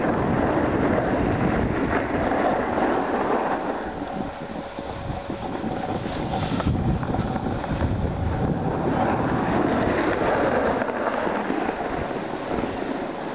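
Wind buffeting the microphone of a camera carried by a skier moving downhill, a loud, gusting rumble that eases a little about four seconds in.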